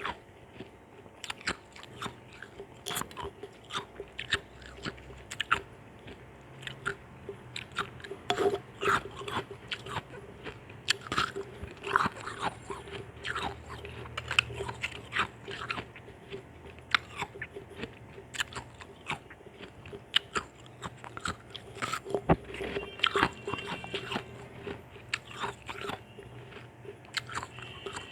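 A person biting and chewing chunks of ice: a fast, irregular run of sharp crunches and cracks between the teeth.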